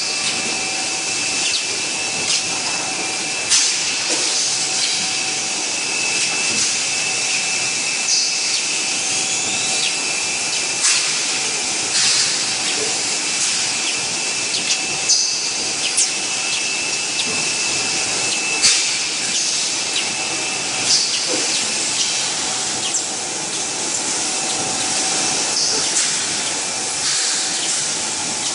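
Automated bottle conveyor and packing machinery running: a steady machine hiss with a constant high whine and a lower hum, broken by frequent short, sharp air hisses and clicks at irregular intervals.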